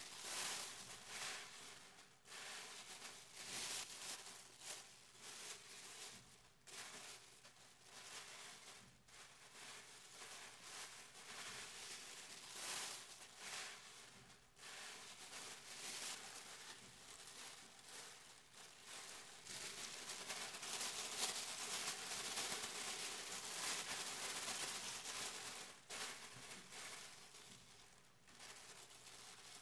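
Plastic shopping bag crinkling and rustling in irregular handfuls, with a longer, denser spell of crinkling about two-thirds of the way through.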